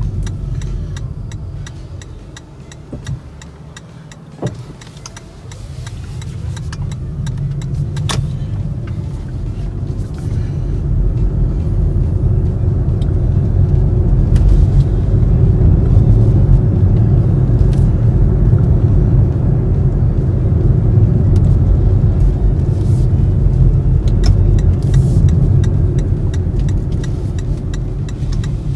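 Loud low rumble that dips briefly a few seconds in and then swells again, with a few sharp clicks over it.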